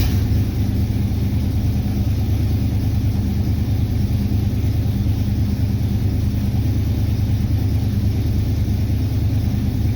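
Freshly rebuilt engine of a Buick Electra catching right at the start and settling into a steady cold idle. It has a cam lope, and a big exhaust leak on the right side, which the owner puts down to the head pipe or the manifold gasket.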